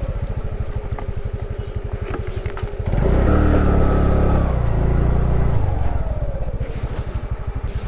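Motorcycle engine running at low speed with a steady chugging beat. It grows louder about three seconds in for a couple of seconds, then eases back.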